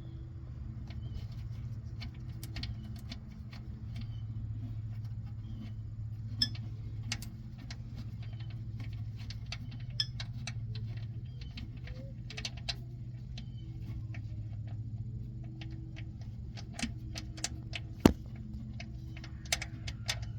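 Hand tools and parts clicking and clinking now and then, with one sharper click near the end, over a steady low hum.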